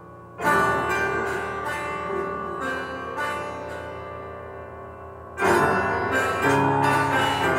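Improvised piano music: a loud, sudden chord about half a second in that rings and slowly fades under a few further notes, then another loud attack about five seconds later.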